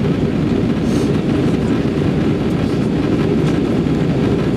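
Steady low rumble of a jet airliner's cabin in flight, engine and airflow noise heard from a window seat on descent.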